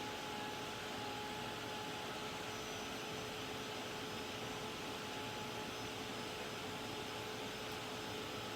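Craft heat tool blowing steadily: an even rush of air with a constant motor whine, drying freshly brushed crackle paste primer.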